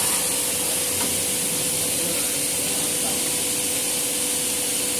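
Maxi roll paper making machine running steadily: an even, high hiss with a thin steady tone under it.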